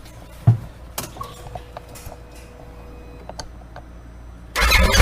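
A thump and a few small clicks, then near the end the Polaris RZR XP1000's parallel-twin engine starts suddenly and keeps running, starting on the first try with its new starter solenoid in place of the bad one that only clicked.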